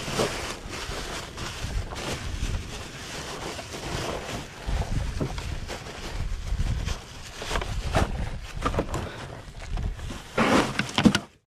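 Black plastic garbage bag rustling and crinkling as it is knotted shut and lifted, with wind buffeting the microphone. A louder burst of crinkling comes near the end as the bag is shoved into the vehicle, then the sound cuts off suddenly.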